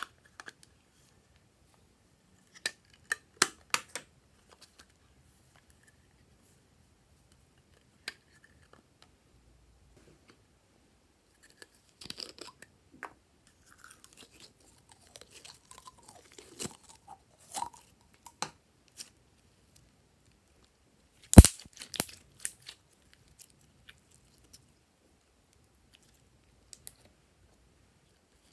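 Plastic slime containers and bottles being handled and squeezed: scattered clicks and crackles of plastic, a few quick ones about three seconds in, patchier crackling in the middle, and one sharp loud snap about 21 seconds in.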